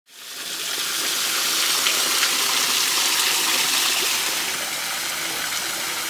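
Small waterfall: water falling in thin streams over a rock ledge and splashing steadily below, fading in over the first second.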